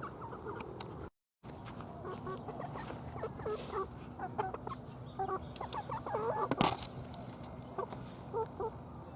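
Several hens clucking in short, low calls, on and off throughout. There is a single sharp knock about six and a half seconds in, and a brief cut-out in the sound about a second in.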